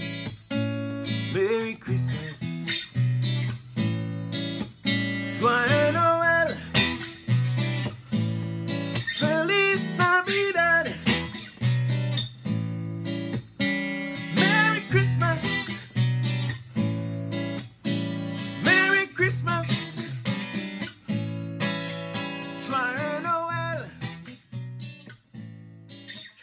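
Acoustic guitar strummed in a steady rhythm, with short melodic runs between the chords, fading out near the end.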